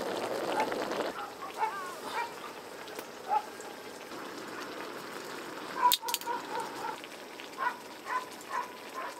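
Stew sizzling on a hot griddle for about the first second, stopping abruptly. Near the end, liquor glugs out of a bottle into a small metal cup in a quick run of pitched gurgles, about three a second, after a sharp click a little before the pour.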